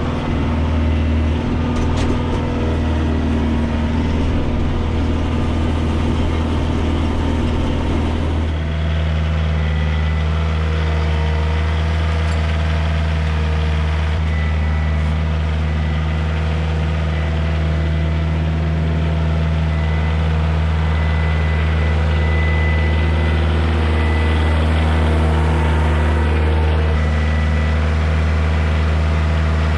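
Farm tractor's diesel engine running steadily as the tractor drives along, with a low drone; about eight seconds in the engine note shifts and then holds steady again.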